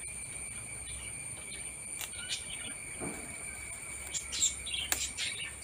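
Steady high-pitched drone of insects, with birds chirping from about four seconds in and a couple of short, sharp clicks.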